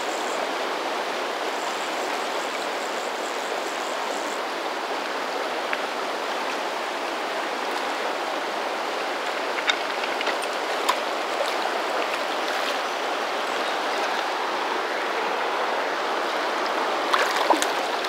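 Fast river water rushing steadily over rocky riffles, with a few brief clicks and small splashes around the middle and near the end.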